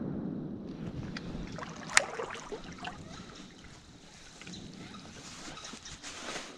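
A shotgun report's echo rolling away through the woods, fading over the first second. Then small clicks and rustles, with one sharp click about two seconds in.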